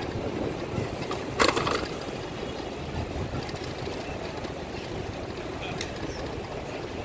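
Steady rumble of city street traffic and wind on a moving bicycle-mounted camera's microphone, with a brief loud knock about a second and a half in.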